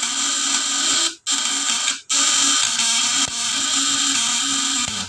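Homemade fish-shocker inverter running under a light-bulb load: its vibrating contact breaker buzzing steadily with an even hum. It drops out briefly twice, about one and two seconds in, and cuts off suddenly at the end.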